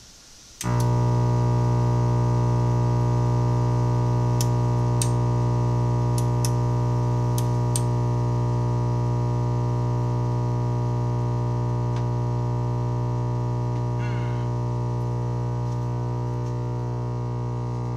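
Steady electrical hum and buzz from a Sears Silvertone vacuum-tube radio receiver played through a small test speaker, pitched around 120 Hz with a dense stack of overtones. It cuts out for about half a second at the very start and then comes back. A few faint crackling clicks follow, and it grows slightly quieter toward the end.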